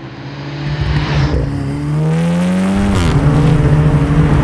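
A 2019 Volkswagen Golf R's turbocharged 2.0-litre four-cylinder engine and exhaust under acceleration: the revs climb steadily, fall away sharply about three seconds in, then run on at a lower, steady pitch.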